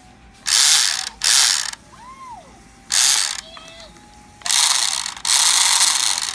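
Small electric motor and gearbox of an old toy RC car running in short spurts, a harsh mechanical grinding whir five times, the last two longer, on a weak 3.2-volt battery.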